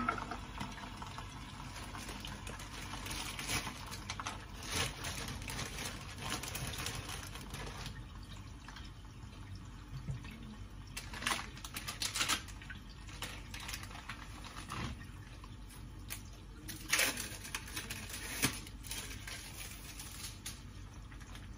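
Food sizzling and crackling in a covered frying pan on a gas stove, with a sharp clink right at the start and scattered louder crackles and rustles of plastic packaging in between.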